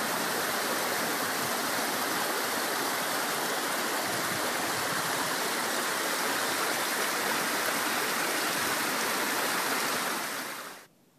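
Small creek splashing and cascading over rocks and cobbles: a steady rush of water that fades out near the end.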